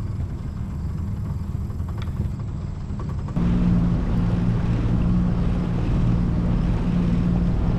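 Small aluminium boat's outboard motor running steadily at low cruising speed, a constant low hum; about three seconds in it gets louder and the hum stronger.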